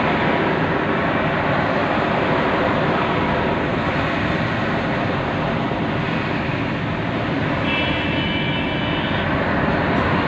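Steady road, tyre and engine noise of a car being driven, heard inside the cabin. A brief high tone sounds for about a second and a half near the end.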